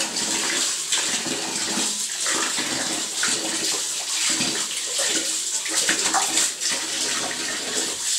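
Water from a wall tap pouring steadily into a plastic tub of bathwater, with irregular splashing as a small child's hand plays in the falling stream.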